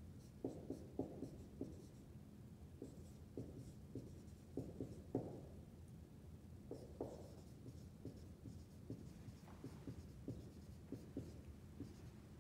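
Dry-erase marker writing on a whiteboard: short, irregular squeaks and taps of the felt tip as letters are written, faint.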